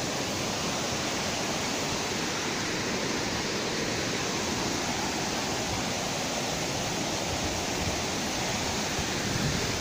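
Steady rushing of water from the stream flowing below the dam, an even hiss with no break.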